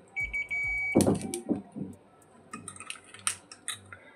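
A short steady electronic beep near the start, then a sharp click and a scatter of small clicks and taps as a glass cartridge fuse is handled and pressed into its clips on the amplifier's power-supply board.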